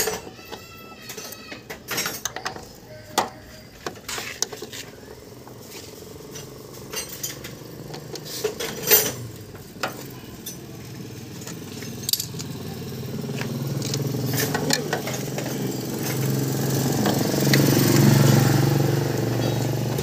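Scattered sharp metal clicks and taps of hand tools working on a car door hinge, then a passing motor vehicle's engine that grows louder from about the middle and is loudest near the end.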